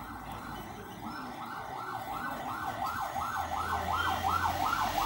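Emergency-vehicle siren sweeping rapidly up and down, the sweeps coming faster, about three a second, and growing louder. A low hum joins in during the second half.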